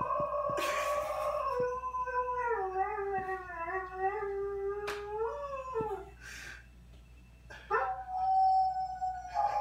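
Dog howling: one long, wavering howl of about six seconds, then a second, steadier howl starting near the end.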